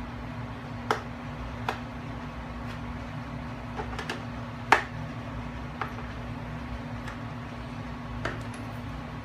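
Scattered sharp clicks and taps from hands handling and fitting a part at the underside of a Dillon XL650 casefeeder, loudest about halfway through. They sit over a steady low hum.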